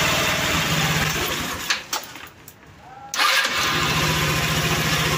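Rossi Rapid 150 scooter engine, freshly fitted with a 26 mm Keihin carburettor, idling steadily. It cuts out about two seconds in, then is started again a second later and settles straight back into an even idle.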